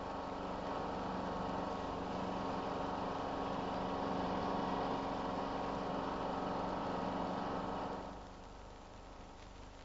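Early Mercedes-Benz Unimog's diesel engine running steadily while the tractor mows grass with its side-mounted finger-bar mower. About eight seconds in, the sound drops away to a faint hiss.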